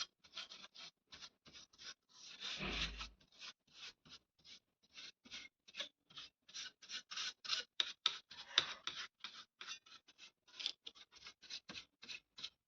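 A brush scrubbing caked dust off a laptop motherboard in short, quick scratchy strokes, several a second, faint, with one longer, heavier stroke about two to three seconds in.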